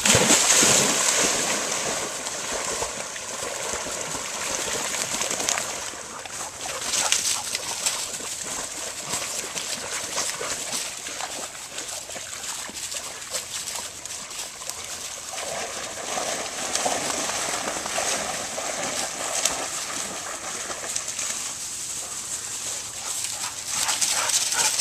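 Dogs swimming in a pond, the water splashing and sloshing around them, loudest in the first second and again around seven seconds in.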